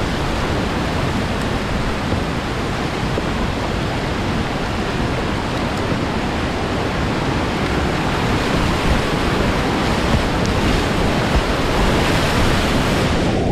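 Loud, steady rush of whitewater rapids around a kayak paddling downstream, with splashes against the boat, growing a little louder toward the end. Right at the end the sound goes muffled as water washes over the camera.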